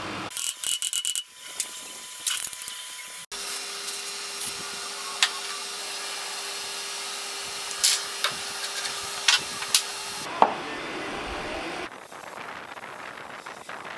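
Hand work on a mill drill's table leadscrew end: a quick run of sharp metal taps in the first second or so, then rubbing and handling noise with scattered single metal clicks as the end housing is wiped and worked loose on the shaft.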